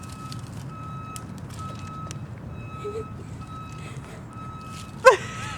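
A vehicle's reversing alarm beeping at a steady even pace, about one and a half beeps a second, over a low rumble. A person's voice sounds briefly near the end.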